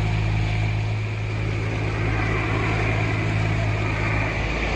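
Boat engine running steadily with a low, even hum, over a wash of wind and water noise.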